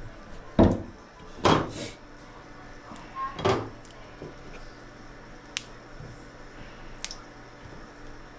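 Kitchen handling noises during cooking: three loud knocks and clatters in the first four seconds, then a couple of light clicks. A faint steady hum runs underneath.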